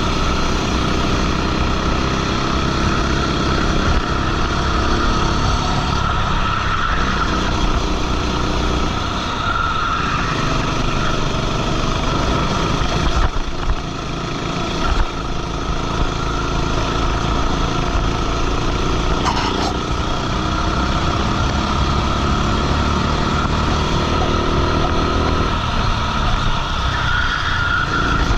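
A go-kart engine running hard under onboard racing, its revs falling and climbing again several times, with a short drop in level about halfway through.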